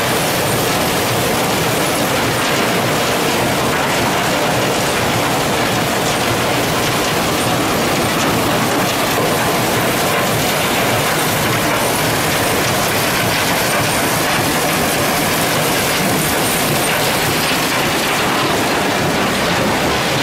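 Alluvial cassiterite (tin ore) sand separating plant running: the steady combined noise of its machinery, including spiral classifiers, geared drive units and slurry pumps, at work.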